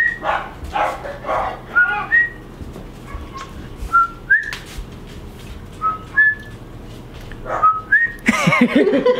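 A man whistling through cupped hands, mimicking an animal call. He makes short rising chirps in pairs, a lower note then a higher one, about every two seconds. Laughter and voices break in near the end.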